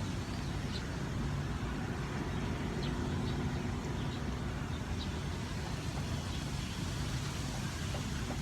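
Steady low rumble of road traffic, with a few faint, short high chirps scattered through it.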